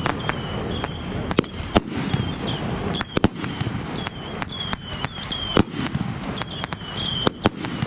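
Consumer fireworks going off all around: many sharp, irregular bangs and cracks, mixed with short high whistles.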